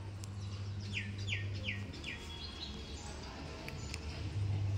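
A bird calls a quick series of four falling whistled notes in the first half, over a steady low hum.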